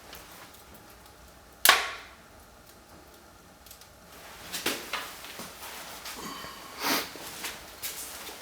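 Wood fire crackling in the firebox of a Fabrilor Deco 690 SA fireplace insert: one sharp, loud pop about a second and a half in, then scattered smaller crackles and pops over the last few seconds.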